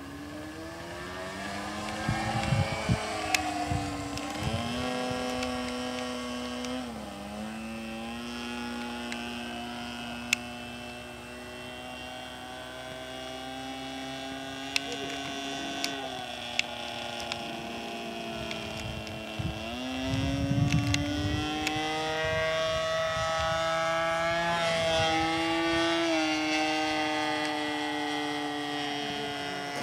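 Engine of an RC Seagull Extra 300S aerobatic model plane running in flight, its pitch shifting with throttle and manoeuvres: it drops and holds steady for a stretch, then climbs again about two-thirds through and wavers up and down. A few sharp clicks and two brief low rumbles come through as well.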